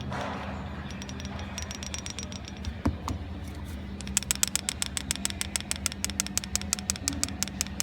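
Engine running with a steady hum and a fast, regular metallic ticking of about six clicks a second, which is heard briefly and then continuously from about four seconds in. The ticking is a pump lifter noise.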